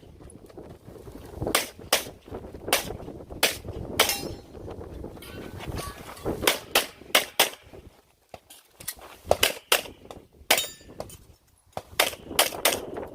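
9mm service pistol shots fired in rapid strings, mostly in quick pairs (double taps), with a pause of about two seconds near the middle before the firing resumes.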